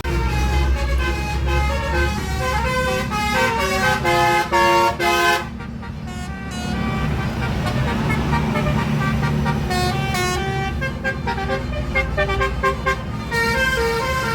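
Bus 'telolet' horn, a set of multi-tone air horns, playing a quick tune of stepped notes for about five seconds, then after a short break a second, longer run of notes. A steady low bus engine rumble runs underneath.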